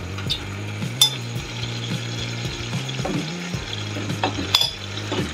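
A pan of chicken and vegetables in gravy sizzling over a steady low hum as soba noodles are tipped in and pushed with metal tongs. A few sharp clicks of the tongs against the bowl and pan: about a second in, again near the end, and once more at the very end.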